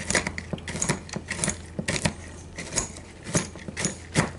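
Chopped pecan pieces clicking and rattling against a glass bowl as a hand digs through them: a run of irregular light clicks, several a second.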